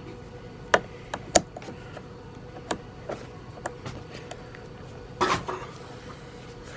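Hand tools clicking and tapping on a car part being worked loose, with a short scraping rustle about five seconds in.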